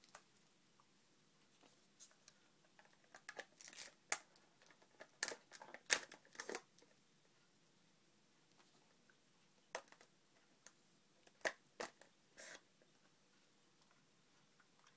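A thin plastic straw wrapper being crinkled and torn open, in short crackles and clicks, as a drinking straw is unwrapped for a cup drink. There is a busy spell of crackling in the first half and a few scattered clicks later.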